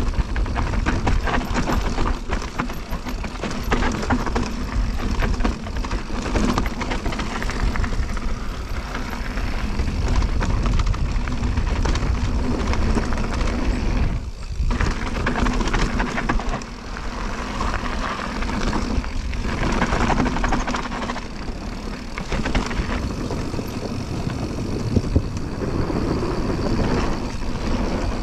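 E-bike descending a rough, rocky downhill trail: steady wind rush on the microphone over a low rumble, with constant clattering and rattling as the bike and tyres pound over rocks and ruts.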